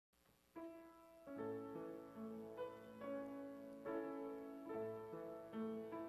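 Grand piano playing the introduction to a hymn: chords with a melody on top, beginning about half a second in.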